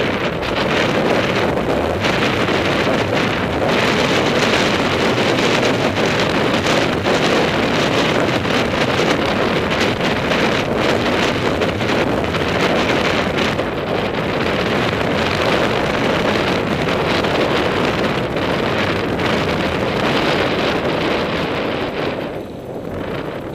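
Wind buffeting the camera microphone of a mountain bike riding fast down a dirt fire road: a loud, steady rushing noise that eases near the end.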